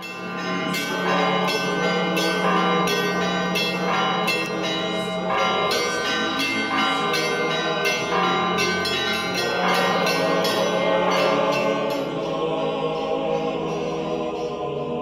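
Orthodox church bells ringing in a fast peal, about two to three strikes a second, over a steady low hum; the strikes thin out and the ringing fades over the last few seconds.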